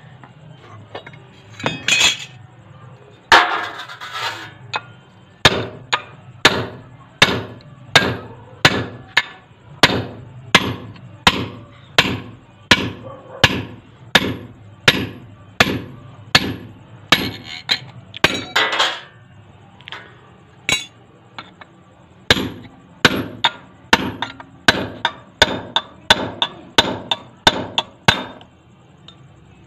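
Hand-lever metal shear chopping through sheet steel in short bites, a sharp ringing metallic clack with each stroke, about one and a half a second, pausing briefly about two-thirds of the way in. A couple of short scraping noises from the steel sheet being shifted.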